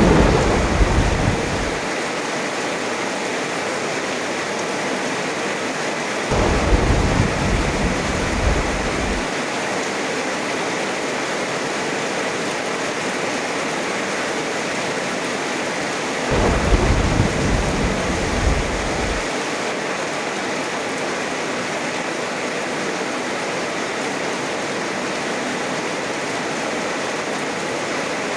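Steady heavy rain with rolls of thunder: a rumble fading out in the first two seconds, then two more low rumbles of about three seconds each, starting about 6 and 16 seconds in.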